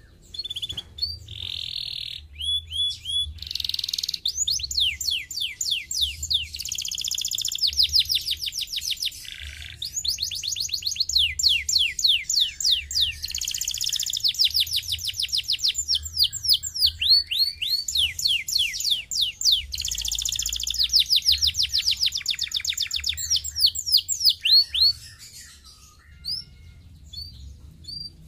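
Canary singing a fast, continuous song of rapid repeated trills and quick rising and falling sweeps. The song breaks up into scattered single notes near the end.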